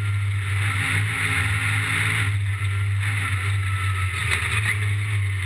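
Yamaha YXZ 1000R side-by-side's three-cylinder engine running at a steady, unchanging drone under way, with wind rushing over it.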